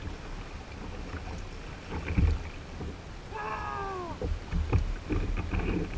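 Wind buffeting the microphone and water lapping against the kayak hull at sea, with a brief knock about two seconds in and a single short cry falling in pitch about three and a half seconds in.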